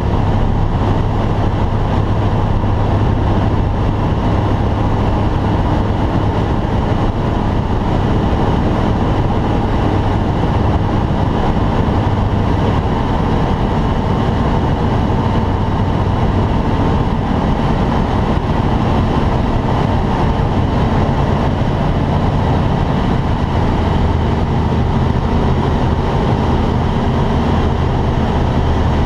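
Steady drone inside the cockpit of a T-10M light aircraft in flight, made up of engine, propeller and rushing air. Its low hum steps down a little in pitch about two-thirds of the way through.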